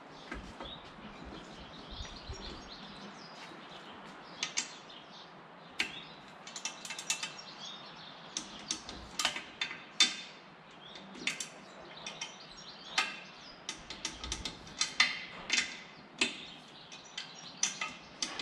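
Hand wrench ratcheting and clicking in short, irregular runs, with light metal taps, as the propeller hub bolts are tightened and checked for torque. It starts quietly and the clicking becomes frequent after about four seconds.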